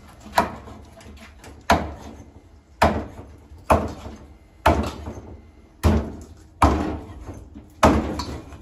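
Machete chopping skinned iguana meat into pieces on a wooden cutting board: eight sharp chops, about one a second.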